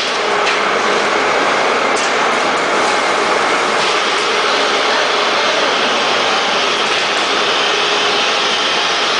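Automatic powder bag packaging machine running: a steady mechanical and air hiss with a faint hum, broken by a few short pneumatic clicks early on as its cylinders move.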